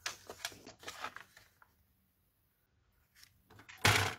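Cardstock being slid and tapped into place on a paper trimmer, with a few short rustles and light clicks, then a pause. Near the end comes one louder, sharp, brief clack-and-rasp as the trimmer's clear cutting rail is brought down over the paper.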